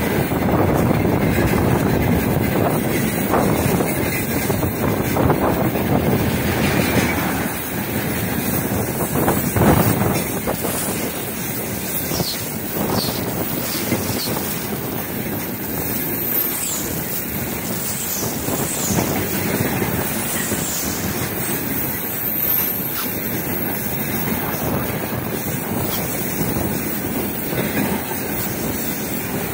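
Long freight train of tank cars rolling past: a steady rumble and rattle of wheels on rails with occasional knocks, and a few short high squeals about midway.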